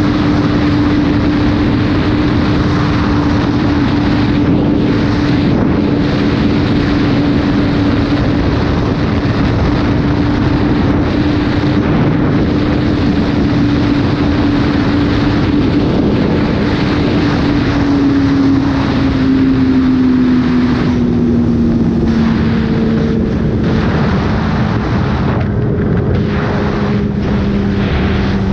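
Onboard sound of a sport motorcycle at speed: the engine holds a steady high note under heavy wind rush, then eases down in pitch about two-thirds of the way through as the throttle is rolled back.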